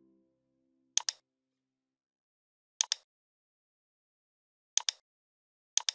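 Computer mouse clicks: four sharp double clicks, spaced one to two seconds apart.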